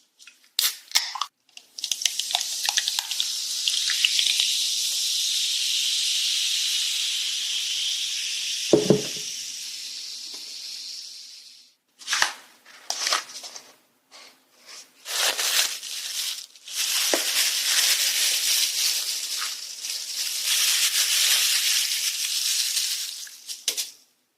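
Food sizzling in a hot pan: a steady hiss that fades out, then starts again and runs several seconds, with scattered clicks and one dull knock about nine seconds in.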